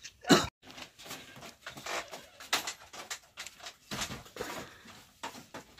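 Scattered knocks, clicks and rustling as a woven bamboo door is handled, with a sharp knock just after the start.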